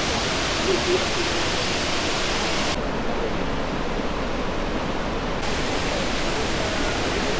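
Iguazu Falls: the steady, dense rush of a massive waterfall, heard as an even wash of noise. It sounds somewhat duller in the middle.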